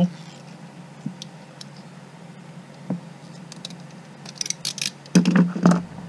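Small hand tools and a coax connector being handled: a few light metallic clicks, a quick run of sharper clicks about four seconds in, then a louder clatter near the end.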